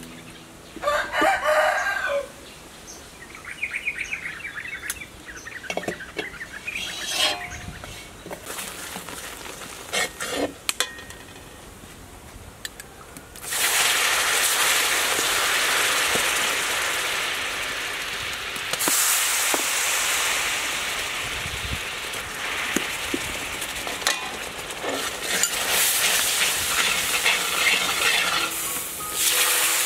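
A rooster crows once about a second in. From about halfway, palm sugar and fish sauce in a hot wok start sizzling loudly and steadily, with the occasional scrape of the stirring spoon.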